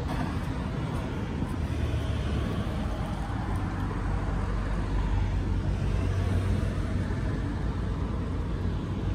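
Steady low rumble of outdoor background noise, with no distinct sound standing out.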